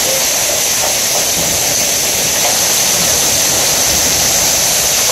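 Hailstorm: hail and heavy rain pelting the lawn, pavement and rocks, a steady, loud, even hiss.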